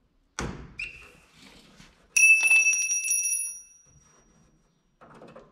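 A dull thump, then about two seconds in a sharp metallic strike that leaves a bright, high ring fading away over about a second and a half.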